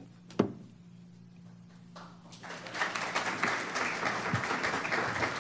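Audience applause that starts about halfway through and runs on, a dense patter of many hands clapping. A single sharp knock comes just before, under a low steady hum.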